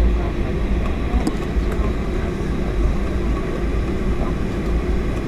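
Steady low rumble inside the passenger cabin of a Boeing 757-300 taxiing after landing, its engines at idle.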